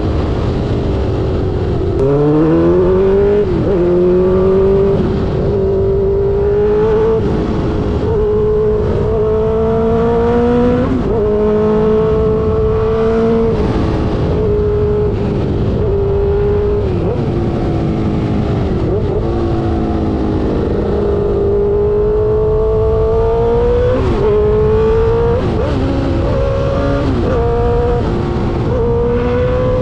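Suzuki GSX-R600 K5's inline-four through an SC-Project exhaust, pulling at high revs. The engine note dips briefly and picks up again every second or two as gears are changed with the quickshifter, over a steady rush of wind.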